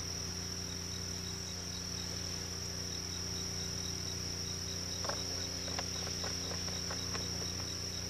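Steady chorus of calling insects, a continuous high-pitched trill, over a low steady hum; a few faint taps come in about five seconds in.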